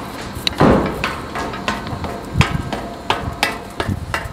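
Footsteps on a staircase: a quick, irregular run of hard knocks and taps, some ringing briefly, with two louder hits, one about half a second in and one past the middle.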